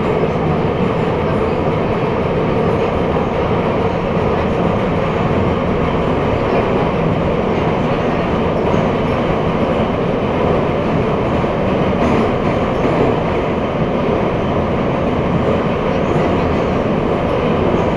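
Metro train running between stations, heard from inside the car: a steady, loud rumble of wheels on the rails and running gear.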